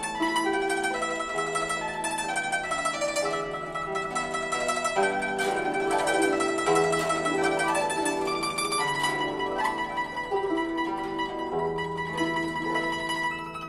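Solo guzheng: a melody of plucked notes ringing over one another, with a busier passage of quick plucking about halfway through.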